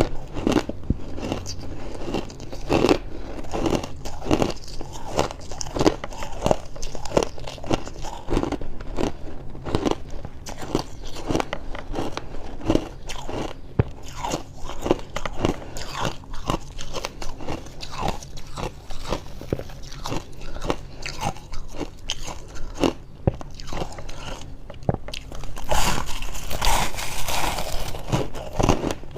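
Close-miked eating of fluffy freezer frost: a continuous run of dry crunches and chewing. A louder, denser flurry of crunches comes near the end.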